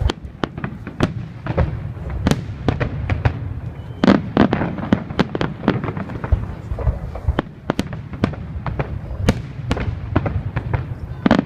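Fireworks going off: a continuous string of sharp cracks and bangs from many shells and firecrackers at once, over a steady low rumble, with a dense flurry of bangs about four seconds in and again near the end.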